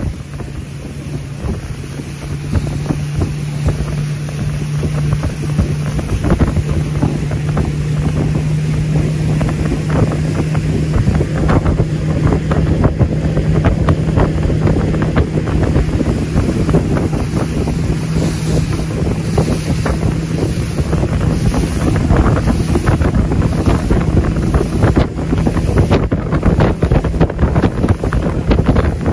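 A boat's motor running with a steady low hum, under heavy wind buffeting on the microphone and rushing water. The whole grows louder a few seconds in.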